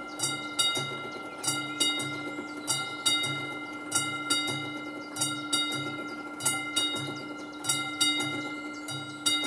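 Level-crossing warning bell on an AŽD 71 signal post, the classic mechanical bell, ringing while the crossing is active and a train is due. Each stroke rings on, and the strokes come in pairs about every 1.2 seconds.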